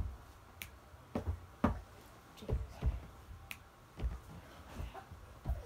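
About ten short knocks and taps, spaced unevenly, with a soft thump under each click.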